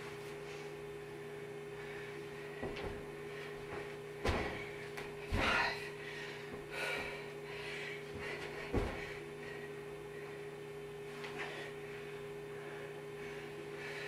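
Burpees on a carpeted floor: a few dull thuds and shuffles as hands and bare feet land, the loudest about four seconds in, over a steady electrical hum.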